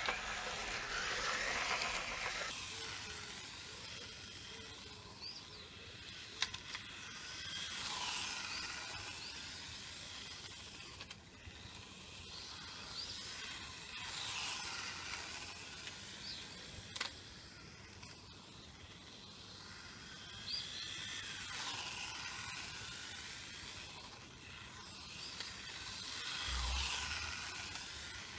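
Small electric RC car (WLtoys K989 chassis) running on asphalt. Its motor whine and tyre hiss swell and fade in repeated passes about every six seconds, rising and falling in pitch, with a few sharp clicks in between.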